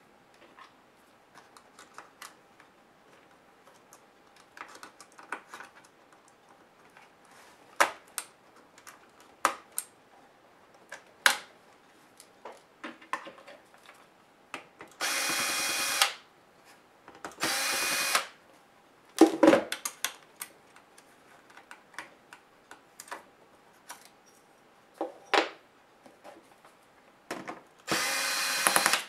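Cordless drill-driver whirring in three short runs of about a second each, driving screws out of a laptop's bottom case. Between the runs come scattered sharp clicks and knocks of screws and tools being handled on the plastic case.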